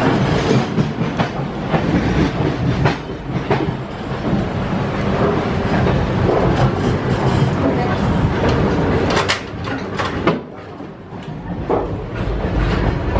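Running noise of an express train's passenger coach heard from inside: a steady rumble and rattle of wheels on the track with irregular clicks and knocks. A few sharp knocks come about nine seconds in, after which the noise is lower for a couple of seconds.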